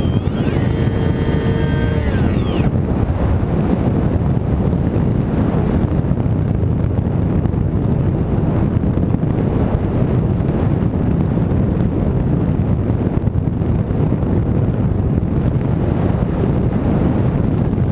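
Wind rushing over the microphone of a camera riding on a radio-controlled model plane in flight. The motor's whine wavers in pitch and cuts out about two and a half seconds in, leaving steady wind noise.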